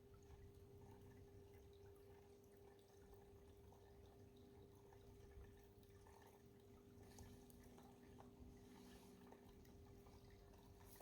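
Near silence: a faint steady hum with a single steady tone.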